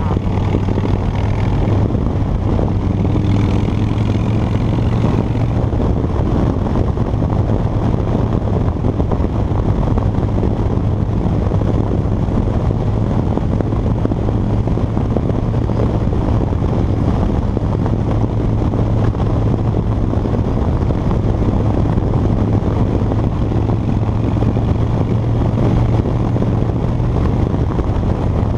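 Harley-Davidson Dyna Fat Bob's V-twin engine running at a steady cruising speed, a constant low drone mixed with heavy wind and road noise from riding at speed.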